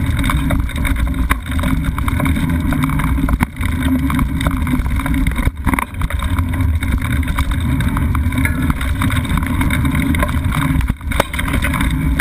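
Mountain bike rolling over a dirt singletrack, heard through a camera mounted on the bike: a steady low rumble of tyres and mount vibration, with frequent small knocks and rattles as the bike goes over the rough trail.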